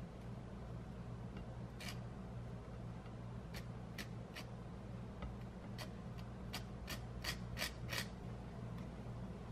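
Small wooden spatula scraping cream cheese across a slice of dark bread in about ten short strokes, coming quicker near the end, over a steady low hum.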